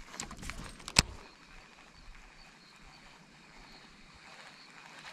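A cast with a baitcasting rod and reel: a short rustle and whir, then one sharp click about a second in, the loudest sound. After it, only a faint steady hiss of the outdoors.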